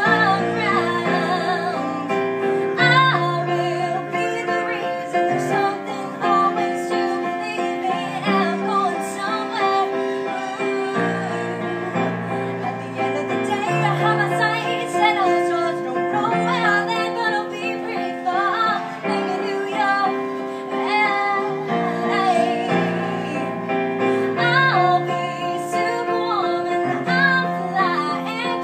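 A woman singing while accompanying herself on a Yamaha electronic keyboard with a piano sound, held chords changing every second or two under the melody.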